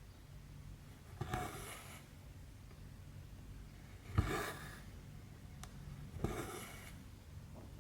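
Embroidery thread being drawn through cross-stitch fabric: three short swishes about two seconds apart, each starting with a soft knock as the needle goes through the canvas, and a faint tick in between.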